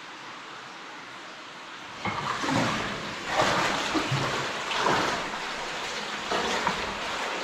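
Water splashing in uneven surges roughly once a second, starting about two seconds in, over a steady hiss of running water.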